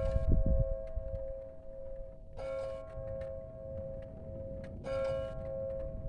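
Church bell tolling: three strikes about two and a half seconds apart, each ringing on into the next, over a low rumbling noise.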